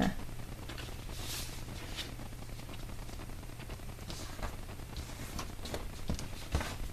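Scrapbooking paper handled and folded by hand on a desk: scattered soft rustles and light taps as the paper flaps are creased and pressed down. There is a bump at the very start and a low steady hum underneath.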